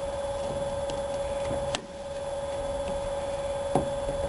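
Steady background hum at one pitch, with two sharp clicks about two seconds apart as chrome-trim retaining clips are snapped into the rear-window ridge.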